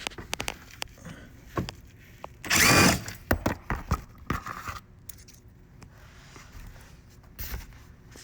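A cordless power driver runs in one short burst about two and a half seconds in, rising in pitch as it spins a bumper fastener out. Scattered clicks and taps of tools and fasteners being handled surround it.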